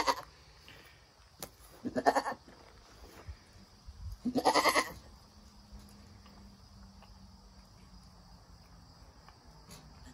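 Nigerian Dwarf doe in labor bleating three times, about two seconds apart, the last call the longest.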